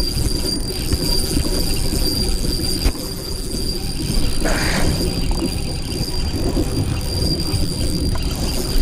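Spinning reel being cranked and its drag giving line while a big hooked fish is fought, over a steady low rumble.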